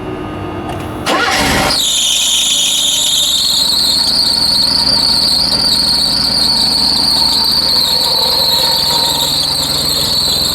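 Mercedes-Benz W124 300E engine firing up about a second in on a cold start after a fuel pump replacement, then running with a steady high-pitched squeal that is taken for a squeaking drive belt.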